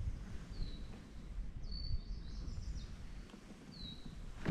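A bird calls three times with short high whistled notes, the middle one longer, over a low steady rumble.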